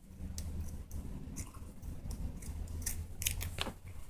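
Scissors snipping through thick sweatshirt fabric: a run of short cuts, about two a second, over a low steady hum.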